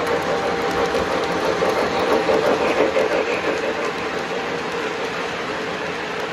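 O gauge model freight train running past on three-rail track: wheels rumbling and clicking over the rails under a steady motor hum. It grows louder about two to three seconds in as the cars pass closest.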